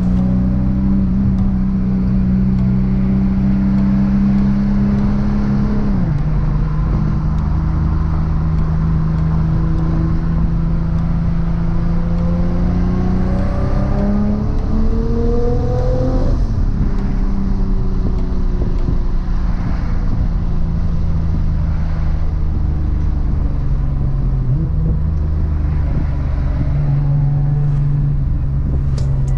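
Nissan GT-R R35's 4.1-litre stroked VR38 twin-turbo V6 running through a 4-inch stainless exhaust while driving. The engine note drops suddenly about six seconds in, climbs steadily under acceleration a few seconds later, then falls again.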